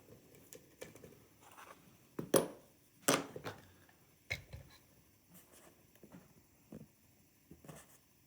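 Scattered clicks and knocks of a pin-and-slider dimple lock and metal tools being handled, with the loudest sharp knocks about two to three seconds in.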